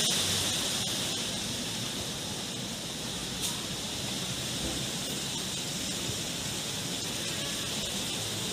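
Typhoon wind and rain: a steady rushing hiss through the trees, with no break in it.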